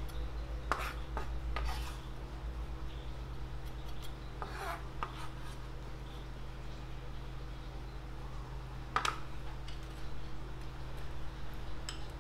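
A large kitchen knife scraping chopped spring onion across a cutting board and knocking against a glass bowl, and near the end a metal spoon clinking in the bowl as stirring begins: a handful of separate scrapes and clicks over a steady low hum.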